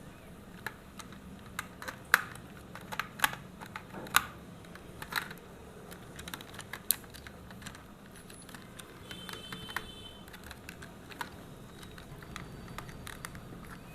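Irregular small plastic clicks and taps from hands handling a toy remote-control car's parts, bunched in the first half and sparser later.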